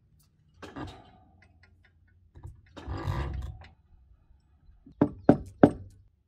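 Knocks of wood on wood as a crane-hung log is set down into place on a log cabin wall: a short knock with a brief ring about a second in, a longer heavy thud around three seconds, then three sharp knocks about a third of a second apart near the end.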